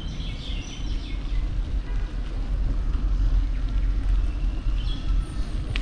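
Wind buffeting the microphone of a camera riding on a moving bicycle: a low, uneven rumble that rises and falls with the gusts of airflow.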